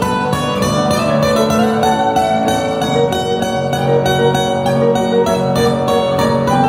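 Plucked string instruments playing an instrumental piece: a rapid run of many quick notes over sustained lower tones, at a steady level.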